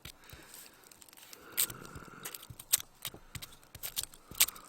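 Dry, papery onion skin being peeled off by hand, crackling and tearing in a run of irregular sharp snaps, two louder ones late on.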